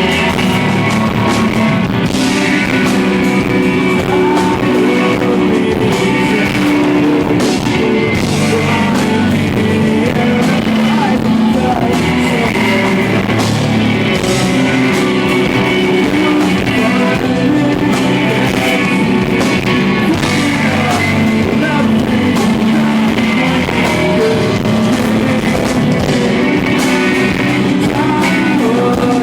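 Live rock band playing loudly, with electric guitars and drum hits and singing in places, recorded on an iPod in the room.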